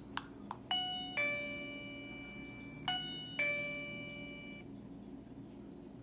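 Wireless doorbell chime sounding its two-note ding-dong twice, a higher note then a lower one, each ringing out and fading, after the doorbell button is pressed. A couple of small clicks come just before the first chime.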